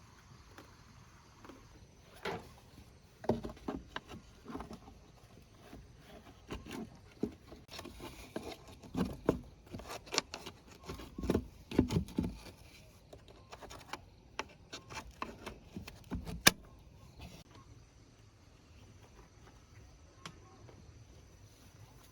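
An irregular series of knocks and clinks, the sound of tools and parts being handled during work on a truck. It starts about two seconds in and stops about three-quarters of the way through.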